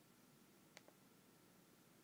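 Near silence with a single faint click of a computer mouse button about three-quarters of a second in.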